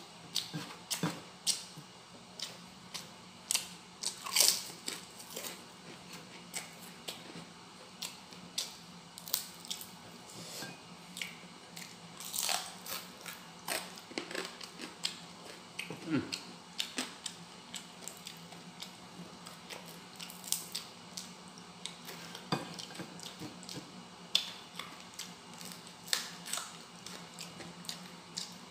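Close-up eating sounds of a man chewing and biting fried fish and rice eaten by hand: irregular short smacks and clicks, some sharper and louder, over a low steady hum.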